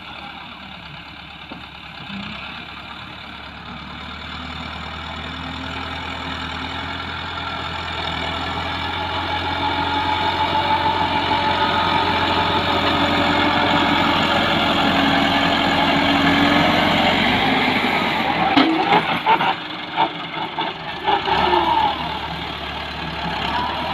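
Massey Ferguson 375 tractor's diesel engine running under load as it pushes soil with its front blade, growing steadily louder as it comes closer. Near the end a few sharp knocks and quick jumps in level break into the engine sound.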